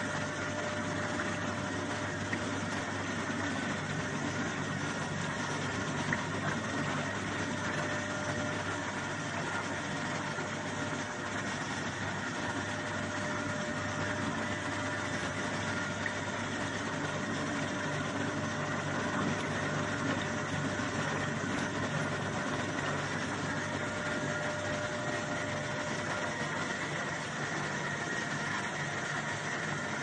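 Soybean washing machine running steadily, its drive motor humming with a few constant tones over the even noise of the churning tub.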